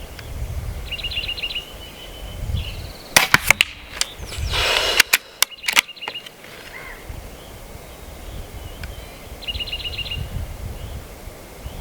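Crosman Benjamin Marauder .22 PCP air pistol being fired and its bolt cycled: a sharp crack with a quick run of clicks about three seconds in, a short hiss, then more metallic clicks. Short high trilled chirps sound near the start and near the end.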